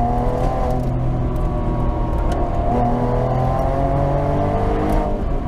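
2007 Porsche Cayman S's 3.4-litre flat-six pulling hard through an autocross run. The engine note eases down about two seconds in, climbs steadily for about two seconds, then drops off near the end.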